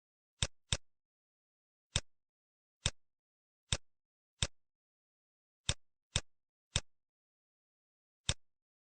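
Computer mouse clicking: about ten single, sharp clicks at irregular intervals, with silence between.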